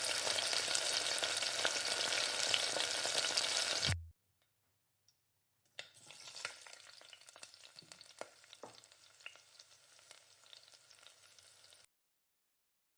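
Food frying in hot oil in a kadhai: a loud, steady sizzle that cuts off suddenly about four seconds in. After a short gap, a quieter sizzle returns with a few clicks and scrapes of stirring, then stops abruptly shortly before the end.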